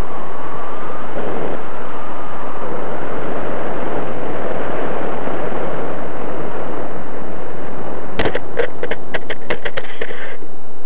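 Rushing air and motor noise heard through the onboard camera of a radio-controlled model plane flying low. Near the end comes a quick run of about ten sharp knocks over two seconds as the plane touches down and skids on the sand, and then the noise cuts off.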